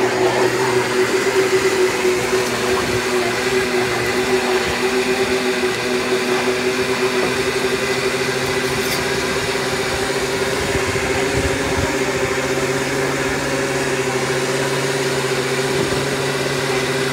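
An engine running steadily at idle: an even hum that holds one pitch throughout.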